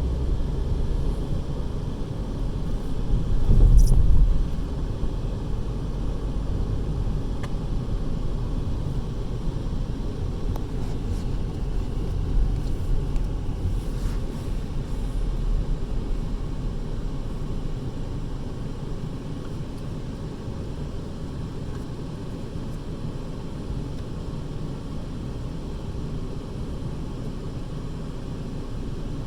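Steady low road and engine noise inside a moving car, with a louder rumble about four seconds in.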